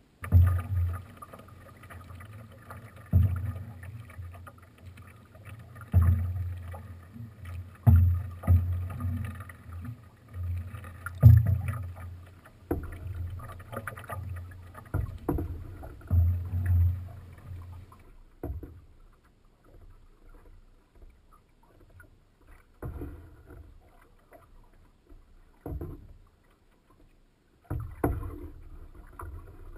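Water slapping and splashing against a canoe hull under way in choppy water: sudden low knocks every one to three seconds, thinning to a few weaker slaps after about 18 s.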